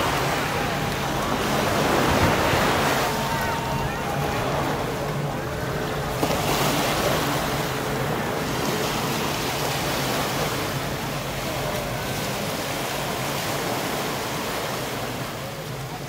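Sea surf washing onto a beach in repeated surges, the loudest about two seconds in and again around six to seven seconds in.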